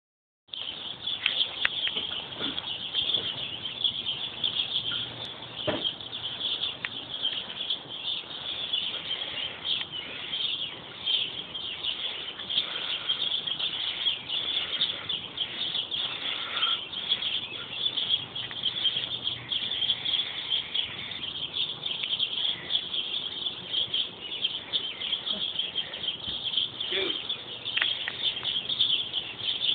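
A continuous outdoor chorus of dense, high-pitched chirping, with a few short knocks scattered through it.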